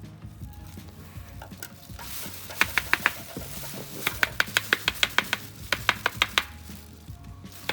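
Runs of sharp plastic taps, about four a second, from a handheld car vacuum cleaner's dust filter being knocked to shake out the dust that clogs it.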